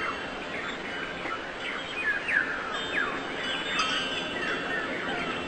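Small birds chirping: many short, quick chirps that slide downward in pitch and overlap one another, busier from about two seconds in, over a steady background wash.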